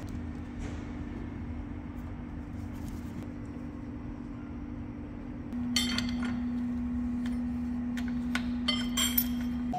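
A steady low machine hum runs throughout. From just past halfway there is a run of sharp metallic clinks and taps, each with a brief ring, as metal tools knock against the lathe chuck and the steel bar during setup.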